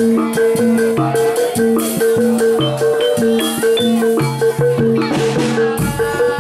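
Gamelan-style barongan music: tuned metal percussion repeats short notes in a steady beat over drums and shaker-like percussion.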